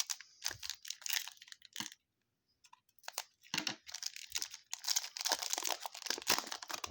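Foil trading-card pack wrapper being torn open and crinkled by hand, in crackly bursts with a short pause about two seconds in, then a longer stretch of dense crinkling.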